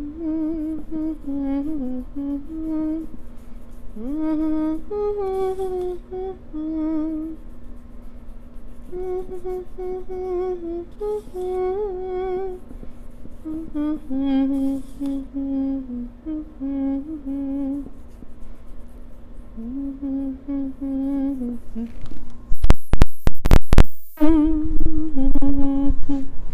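A person humming a slow, wandering tune with long held, wavering notes. Near the end a short run of very loud knocks cuts in for about a second and a half.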